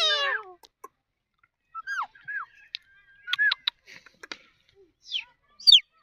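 Indian ringneck parakeet calling: a loud falling cry at the start, then a string of short squeaky chirps and clicks, and two sharp, high falling whistles near the end.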